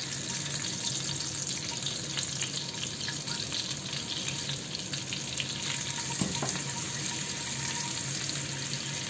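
Whole boiled eggs frying in ghee and oil in a pan, a steady sizzle with fine crackling.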